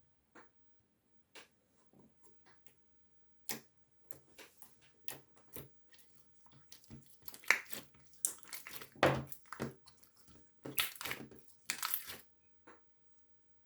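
Irregular close-up clicks, taps and crinkly rustles of something being handled. They are sparse at first and come thick and fast in the second half.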